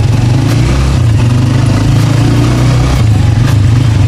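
A vehicle's engine running steadily with a loud low hum and a slight rise and fall in pitch.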